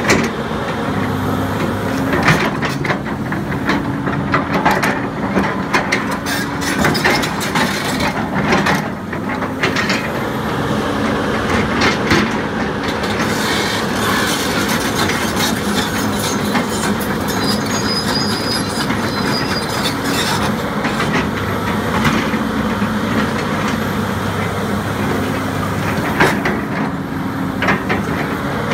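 2003 John Deere 330C LC crawler excavator's Deere diesel engine running steadily while the machine tracks over gravel, its steel track chains clanking and knocking throughout.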